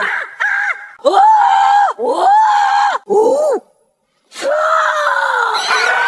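A voice giving a run of short, loud, arching cries, then after a brief pause a longer cry that slowly falls in pitch.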